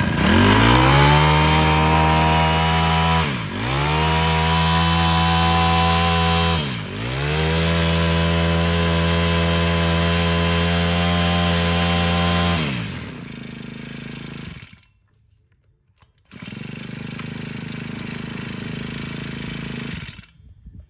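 Honda GX25 25cc four-stroke brush-cutter engine revved up and held at high speed, with two brief throttle dips, then slowing down and stopping. After a short silence a quieter steady running noise follows for a few seconds.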